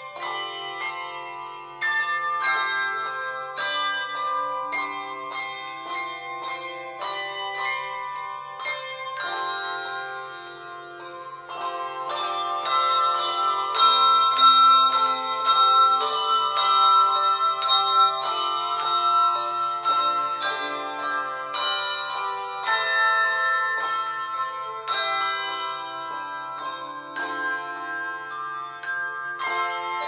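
A handbell choir playing a tune on brass handbells: many bell strikes, several notes at a time, each ringing on into the next. The playing grows fuller and louder from about twelve seconds in, easing back after about twenty.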